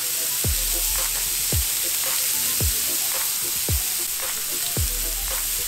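Thin beef smash-burger patties sizzling on a hot Camp Chef griddle top in oil and butter, a steady hiss. Background music with a thudding beat about once a second plays over it.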